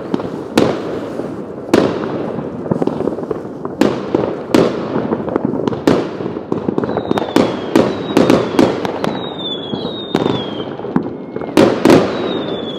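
Fireworks going off: many sharp bangs in quick, irregular succession, some louder than others. From about halfway in, several whistles falling in pitch sound between the bangs.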